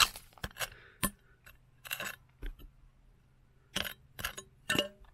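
Rough crystal stones clinking and scraping against one another as they are handled, a string of separate sharp clicks and short clattery clusters.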